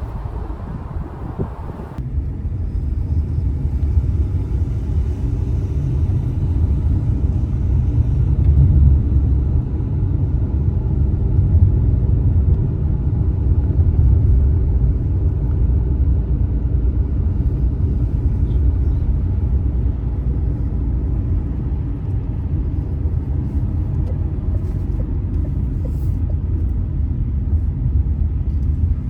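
A car being driven, its engine and tyres making a steady low rumble that sets in abruptly about two seconds in.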